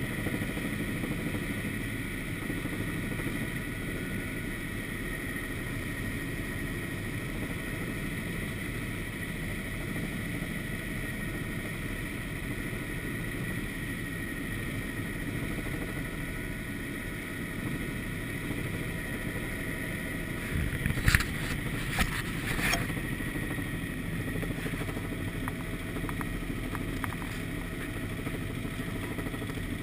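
Helicopter engine and rotor running steadily, heard from inside the cockpit, with a steady high tone over the engine noise. A few sharp knocks come about two-thirds of the way through.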